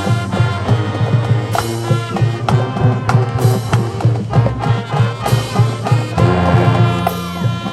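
High school marching band playing a brass-and-drumline arrangement: loud sustained brass chords over steady drum hits.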